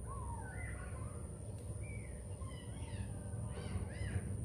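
Several short animal calls in a row, each rising and falling in pitch, over a steady low rumble.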